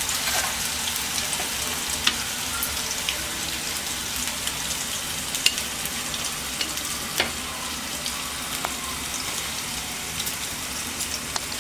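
Ground raw turmeric and jaggery paste sizzling in ghee in a pan, with a spoon clicking against the pan now and then as it is stirred.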